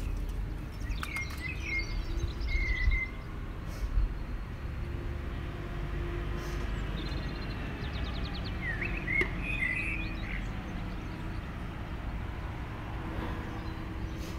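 Outdoor ambience: birds chirp briefly a few times, once near the start and again past the middle, over a steady low rumble of background noise.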